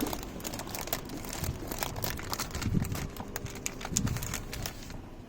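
Plastic packaging crinkling and rustling as it is handled and pulled open, in many short irregular crackles.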